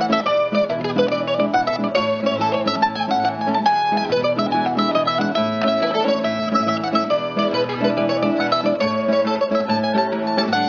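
Background music on plucked string instruments: a quick run of picked notes over a steady strummed and bass accompaniment.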